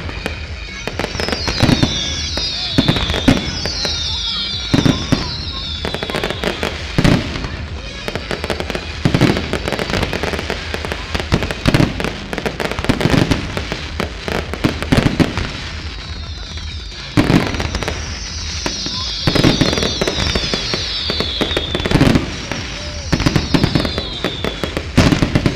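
Fireworks display: a fast, irregular series of bangs from aerial shells bursting. High falling whistles come in clusters a few seconds in and again in the later part.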